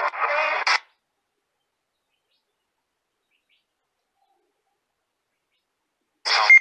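Spirit-box app playing through a smartphone speaker: a short burst of garbled, chirpy voice-like fragments at the start and another just before the end, with dead silence between. The uploader reads the first as the words "her friends" and the second as "stop".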